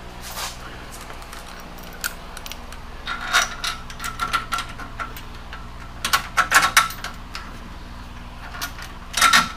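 Small metal hardware clicking and clinking in short clusters as a BoatBuckle retractable tie-down is fitted with a bolt, washer and lock nut to a steel trailer frame. The clinks come in three groups: a little past a third of the way in, about two-thirds in, and just before the end. An Air King fan hums steadily underneath.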